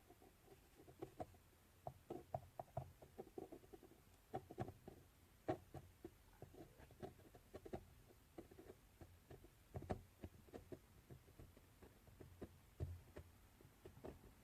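Faint, irregular small clicks and light scraping taps, like small objects and materials being handled, with a few sharper knocks about five and ten seconds in.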